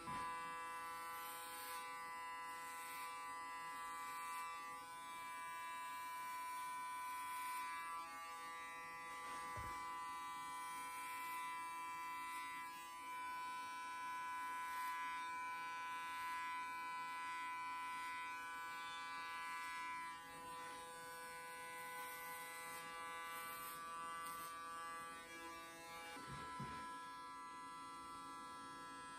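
Electric hair clippers buzzing steadily while shaving a closely cropped head.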